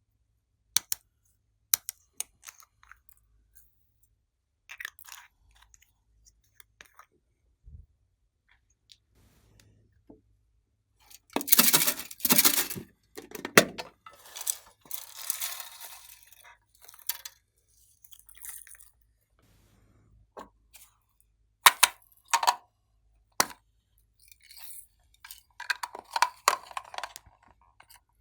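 Glossy slime being worked by hand with small hard add-ins, giving scattered sticky clicks and crackles. Denser runs of crackling come around the middle and again near the end.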